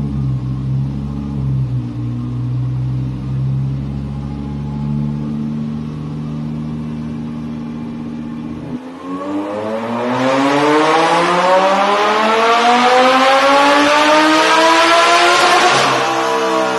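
Supercharged Lamborghini Huracán LP610-4's V10 on a chassis dyno, heard from inside the cabin: it runs steadily at low revs, then about nine seconds in the throttle opens and the engine pulls hard through one gear, its pitch climbing for about seven seconds. Near the end the throttle closes and the revs begin to fall, ending the full-power dyno run.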